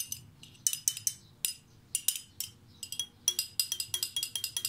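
Glass pipette tip clinking against the neck and wall of a glass conical flask as sodium hydroxide solution is run in from a volumetric pipette: a quick, irregular run of small ringing glass clinks, thickest near the end.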